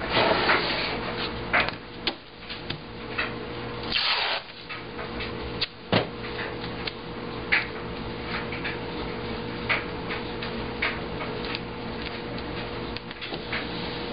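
Hands pressing and rubbing tape down onto newspaper laid over the drawer's glass, with scattered paper rustles, scrapes and small clicks and one sharper click about six seconds in, over a steady faint hum.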